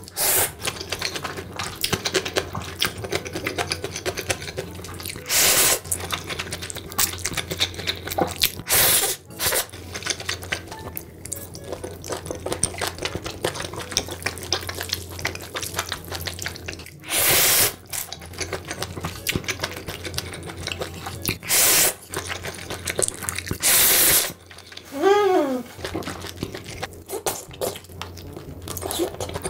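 Close-miked wet eating sounds of a person eating noodles: constant smacking and chewing clicks, broken by about six louder slurps of half a second to a second each. Near the end there is a short hummed 'mm'.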